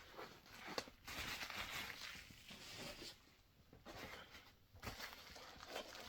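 Faint rustling of packaging being handled, in short spells with a couple of soft taps.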